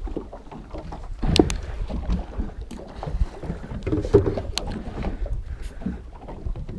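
Wind buffeting the microphone over sea and boat noise, with a few sharp clicks and knocks as a spinning reel is cranked against a hooked fish.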